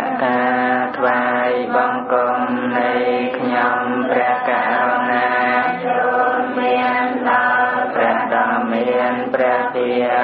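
Buddhist chanting: a continuous chanted vocal line in long held and sliding tones.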